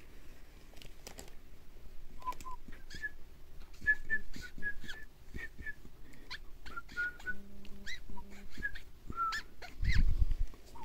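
Repeated short, high chirps and squeaks from an animal, some sliding in pitch, with a low thud near the end.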